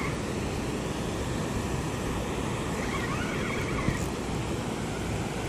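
A steady rushing noise with no speech, with one faint short click just before four seconds in.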